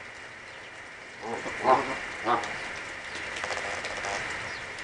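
Geese giving a few short low calls between about one and two and a half seconds in, the middle two louder.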